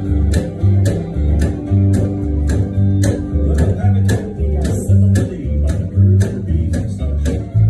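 Acoustic upright bass plucked in a bouncing country bass line, each low note changing on the beat, with a steady sharp click about three times a second, over guitar accompaniment.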